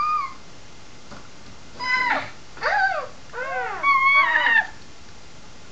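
A child's high-pitched squeaky voice making sound effects: four short squeals in quick succession, each rising and falling in pitch, starting a couple of seconds in.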